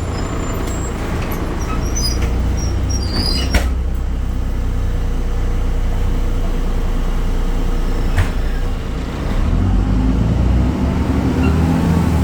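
BredaMenarini Avancity Plus city bus on the move, its Deutz diesel engine droning with road noise. There are two sharp knocks, about three and a half and eight seconds in, and the engine note strengthens after a short dip near the end.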